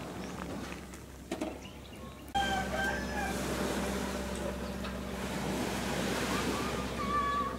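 A rooster crowing: one call just after the scene changes and a shorter one near the end, over a steady low hum.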